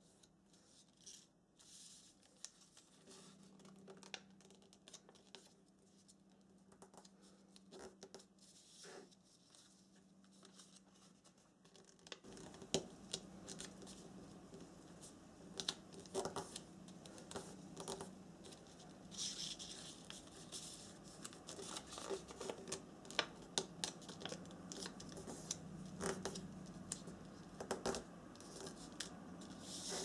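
Origami paper being folded and creased by hand on a wooden tabletop: faint scattered rustles, scrapes and light taps, busier in the second half.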